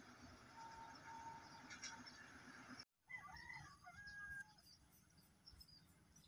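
Faint outdoor ambience, broken by a brief dropout about three seconds in, followed by a rooster crowing faintly for about a second and a half.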